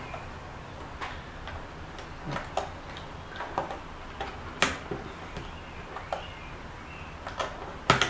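Small plastic clicks and scrapes as a key and switch are worked out of a Keychron K6 hot-swappable mechanical keyboard with a puller. Scattered light ticks, with a sharper click a little past halfway and another at the end.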